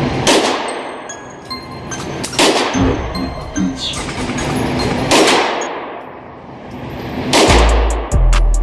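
Gunshots at an indoor shooting range: four single shots about two to three seconds apart, each echoing off the range walls.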